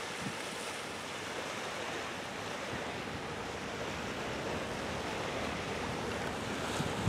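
Steady rush of wind and water at the shoreline, with a gust buffeting the microphone near the end.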